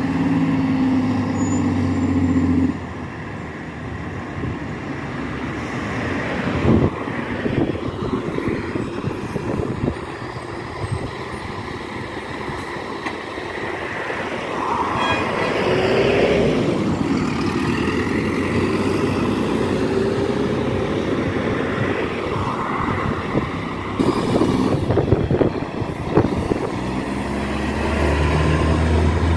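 Highway traffic: cars and tractor-trailer trucks driving past, one vehicle going by with a falling pitch about halfway through. Near the end a semi-truck's diesel engine drones loudly as it passes close by.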